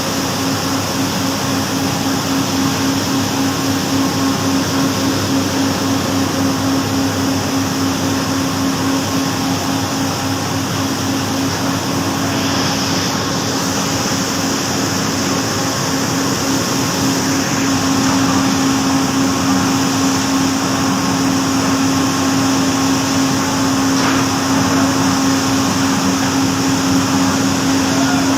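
Cotton-mill machinery running steadily: a loud, even drone with a strong low hum.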